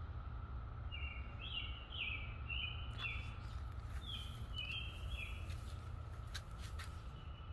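Periodical cicadas droning steadily as a distant chorus, with a bird chirping a run of short falling notes over it for the first few seconds. A low rumble and a few sharp clicks sit underneath.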